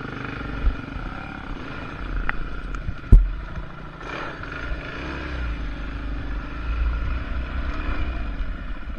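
Dirt bike engine running while the bike is ridden along a dirt trail, with a single sharp knock about three seconds in.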